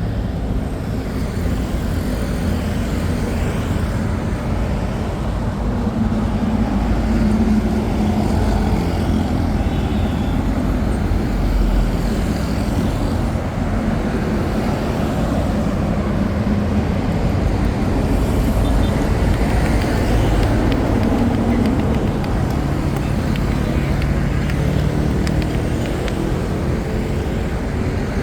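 Steady street traffic noise, with engines passing and humming close by.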